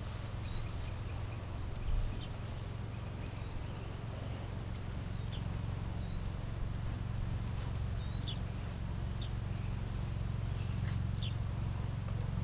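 Small birds chirping now and then over a steady low rumble, with faint rustling and soft hoof steps on dirt as a horse noses and paws at a plastic bag.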